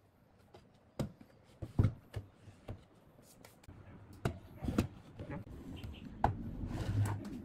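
Wooden frame of a folding highchair knocking and clicking as it is handled on a workbench: irregular wood-on-wood and wood-on-table knocks, the sharpest about a second and two seconds in.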